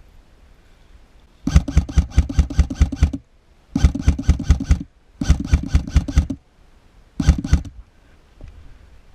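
Electric airsoft rifle firing four full-auto bursts, its gearbox cycling rapidly in each; the last burst is short.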